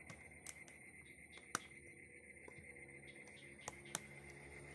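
Small sharp clicks from fingers pressing parts into an opened smartphone's plastic frame and circuit board. There are four clicks, the loudest about a second and a half in, over a faint steady hiss with a thin high tone.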